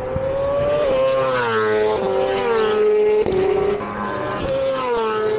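Racing superbike engines at high revs on track, their pitch stepping down suddenly at gear changes and sliding down as bikes pass, with more than one bike heard at once at times.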